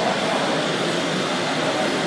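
Hydraulic RC model Liebherr excavator running as it digs with its bucket: a steady mechanical running noise over an even background din.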